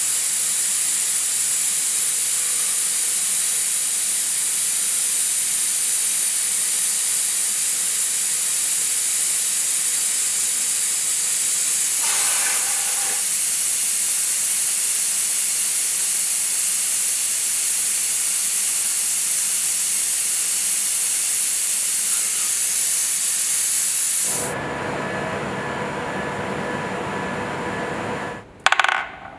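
Steady hiss of coolant spraying over the cutting zone of an automatic lathe as it grooves and parts off brass bar stock. The hiss stops suddenly about 24 seconds in, giving way to a quieter room sound. One sharp knock comes near the end.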